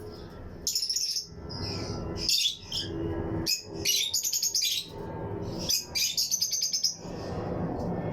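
A colony of lovebirds chirping: several bursts of rapid, shrill chattering chirps, with short pauses between the bursts.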